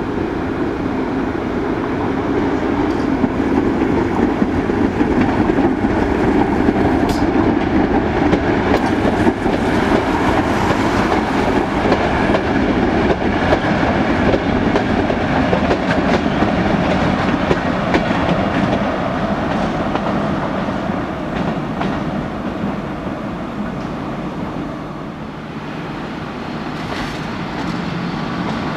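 Freight train rolling past on the tracks, its wheels knocking over the rail joints with a clickety-clack. The noise is loud and continuous, eases for a few seconds after about twenty seconds, then builds again near the end.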